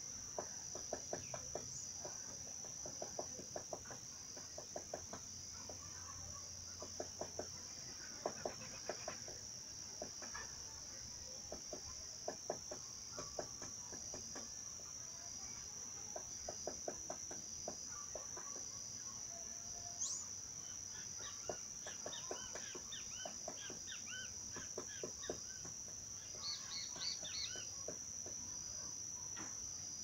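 A woodpecker pecking at the tree in short bursts of rapid taps every few seconds, over a steady high-pitched insect chorus. Brief bird chirps join in the second half.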